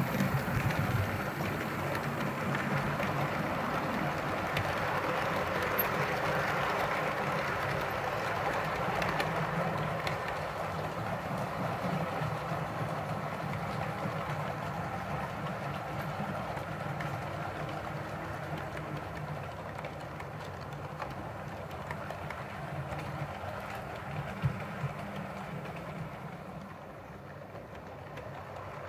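OO-gauge model train, a Heljan Hymek diesel hauling coaches, running along the layout's track: a steady whirr of motor and wheels on rail that fades gradually as the train moves away. There is one sharp click near the end.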